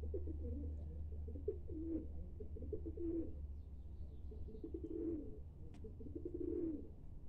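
Feral pigeons cooing in repeated low phrases of about a second each, over a steady low rumble.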